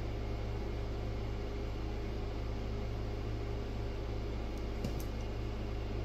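Steady background machine hum and hiss, with a few faint clicks near the end as small metal spade connectors are handled.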